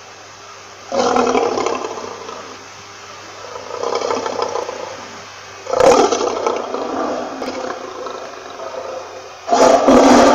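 Lion roaring: several loud, rough roars, most starting abruptly and tailing off over a second or two, with the last and longest beginning just before the end.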